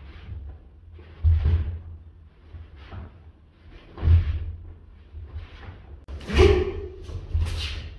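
Bare feet thudding on the floor and uniforms swishing as two martial artists step in with punches and kicks and dodge them: a few heavy thuds one to three seconds apart, the loudest about six seconds in.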